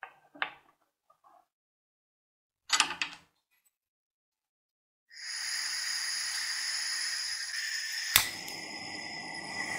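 A couple of light knocks and a brief metal clatter as parts are handled. About five seconds in, a handheld gas torch starts a loud, steady hiss of escaping gas with a whistling edge. About three seconds later a sharp igniter click lights the flame, adding a low rushing noise under the hiss.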